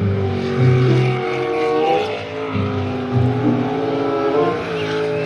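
Racing jet boat engine running hard at high revs, its pitch rising and falling as the throttle changes through the turns.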